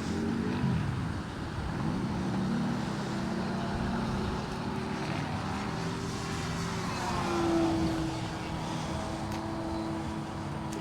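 Small electric RC vehicle motors whining at a steady pitch that shifts up and down, with one swell in pitch and loudness about seven seconds in.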